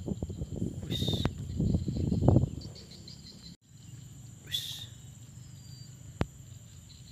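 Steady high chirring of insects in the wetland grass. A low rumble with knocks fills the first two and a half seconds, and two short, sharp high calls come about a second in and again about four and a half seconds in.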